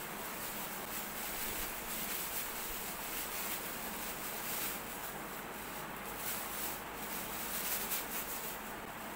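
Packaging rustling and crinkling as accessories are taken out of a speaker system's box: irregular rustles over a steady background hiss, a little louder in the second half.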